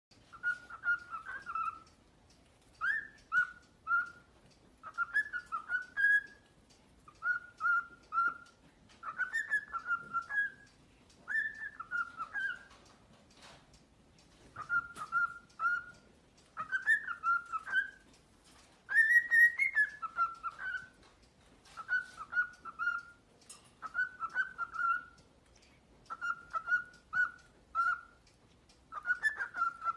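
Pet cockatiel whistling short phrases of a few notes each, over and over, with a brief pause about halfway through.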